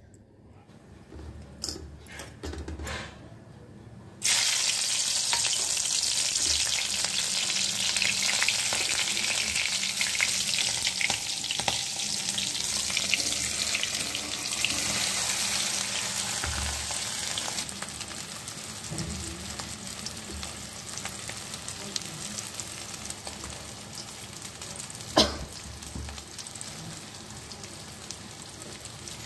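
Hot oil sizzling and frying in a wok, starting suddenly about four seconds in, loud at first and settling to a quieter sizzle about two-thirds of the way through. A single sharp knock sounds near the end.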